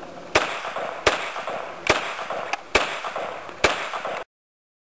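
A .22-calibre 1911-style pistol fired five times, shots a little under a second apart. The sound cuts off abruptly near the end.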